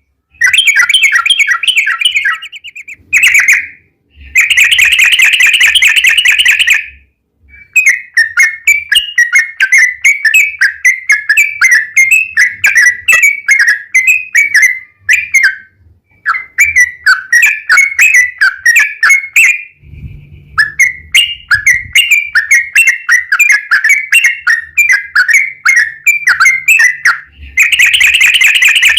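Yellow-vented bulbul (trucukan) singing long, rapid chattering phrases of bubbly notes, with brief pauses between phrases and several denser, faster runs.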